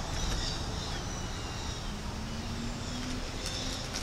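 Faint bird calls over a steady low outdoor rumble.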